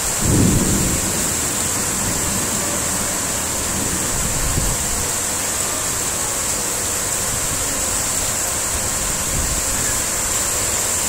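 Heavy rain pouring down in a steady, dense hiss. Low rumbling gusts of wind hit the microphone about half a second in and again around four and a half seconds.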